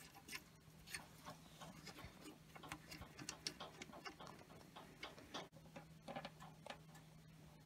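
Faint, irregular small clicks and taps as a brass bleed valve is threaded by hand into a steel fitting on a high-pressure air compressor, over a faint steady low hum.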